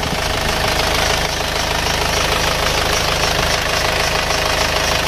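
Isuzu Panther four-cylinder turbo diesel idling with its steady clatter, the microphone close in the engine bay. The engine runs smooth and even, though its compression is starting to leak as blow-by.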